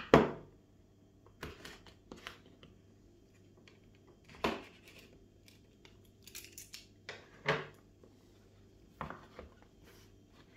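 Scissors snipping through the plastic seal on a smartphone box, with the cut plastic tearing and rustling. It comes as a series of short, sharp snips and crackles, the loudest right at the start.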